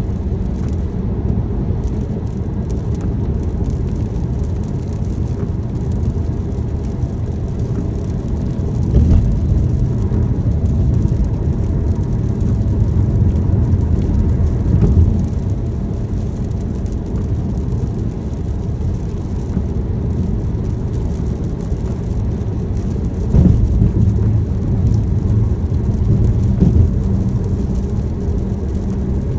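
Road and engine noise inside a moving car's cabin: a steady low rumble, with faint ticking of rain on the car and a few louder low bumps along the way.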